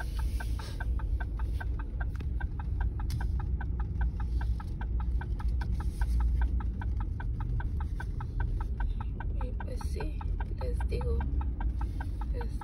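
A pickup truck's turn-signal indicator ticking steadily, about four ticks a second, over the low rumble of the idling engine inside the cab.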